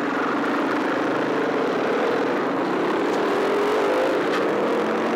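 Trail motorcycle engine running under way at a steady pace, its pitch wavering and slowly rising, over a steady rushing noise.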